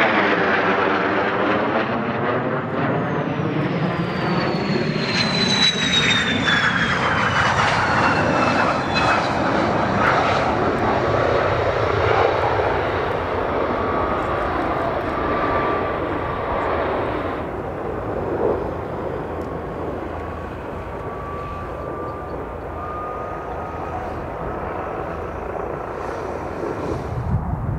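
Aircraft passing close by with a loud engine noise. Its high whine slides down in pitch as it goes past, then the sound slowly fades as it moves away.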